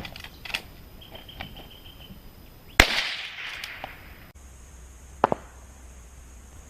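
Rifle shots heard from far down range: a sharp crack about three seconds in with a rolling echo lasting a second and a half, then a quick double crack near the end.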